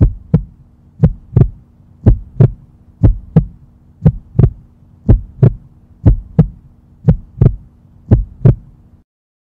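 Heartbeat sound effect: paired lub-dub thumps about once a second over a low steady hum, cutting off about nine seconds in.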